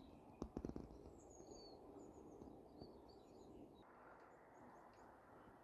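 Faint small birds chirping against near-silent countryside quiet, with a few soft clicks about half a second in. The chirping stops near the end, leaving only a faint hiss.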